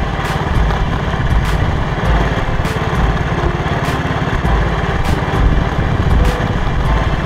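Motorcycle engine running steadily under way, picked up on the rider's own bike, with a regular beat of background music ticking about every half second over it.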